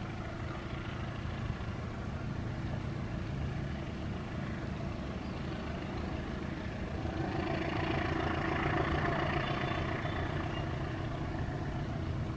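Diesel locomotive engine running as it slowly hauls a container freight train toward the listener. The sound swells about seven seconds in and eases off near the end.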